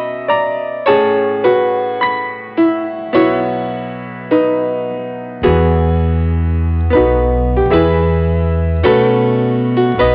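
Background piano music: a melody of struck notes that die away, with a deep sustained bass coming in about halfway through.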